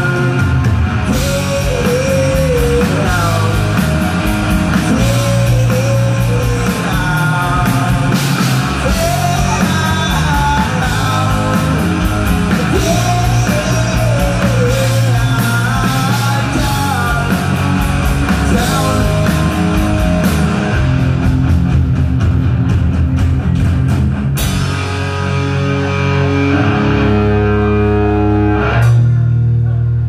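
A live rock band playing loudly: distorted electric guitars and a drum kit, with a sung lead vocal through the first half. About three quarters of the way through, the steady drumming drops out and held guitar chords ring out to the song's ending, with one loud final hit near the end.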